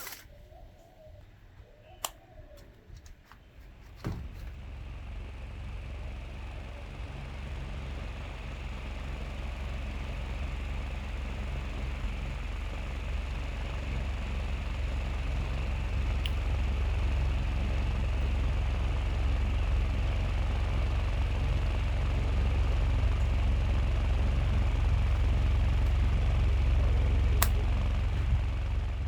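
Small battery-operated homemade fan: a few clicks, then from about four seconds in the fan running steadily, a low rumble with a fainter higher hum, growing gradually louder until it cuts out near the end.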